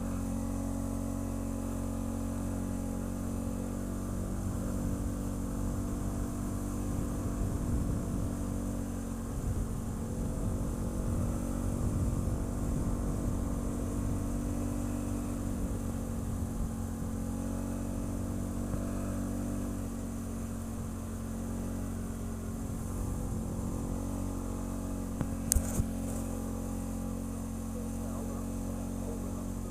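ATV engine running steadily under way on a trail, with a rougher, more uneven stretch in the middle. A brief sharp double knock about four seconds before the end.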